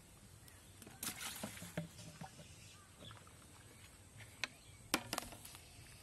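A plastic bucket and its lid being handled: a short rustle about a second in, then a few sharp plastic clicks about four and a half to five seconds in.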